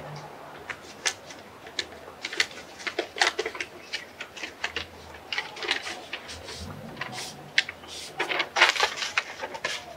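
Paper rustling and crackling as a sheet of paper is handled and unfolded: irregular crisp crinkles and clicks, with a denser cluster near the end.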